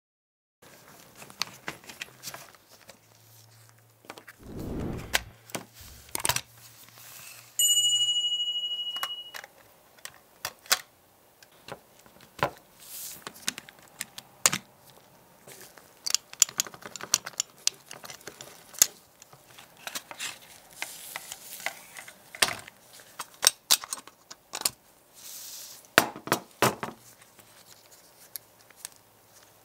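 Clicks, snaps and small knocks of the rusty metal and plastic parts of a 1:18-scale Lamborghini Reventón model car being handled and taken apart. A low thump comes about five seconds in, and a bright metallic ring about eight seconds in lasts about a second and a half.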